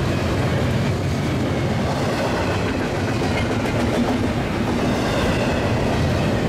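Union Pacific double-stack container freight train rolling past, a steady rumble of its cars on the rails.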